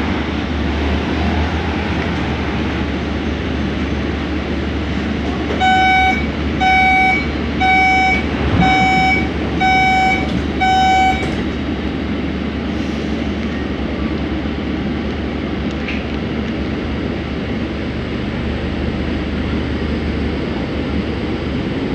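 Six evenly spaced door-closing warning beeps, about one a second, each a clear single-pitched tone, while a Scomi monorail train waits at a station. Under them is the steady hum of the monorail car's cabin.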